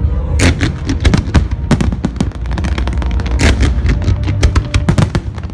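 Aerial fireworks display: many overlapping shell bursts and crackles, several bangs a second, over heavy low booming.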